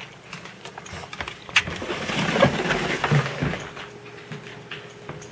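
Husky puppy growling in a rough, noisy stretch in the middle, about two seconds long, with light scattered clicks before and after.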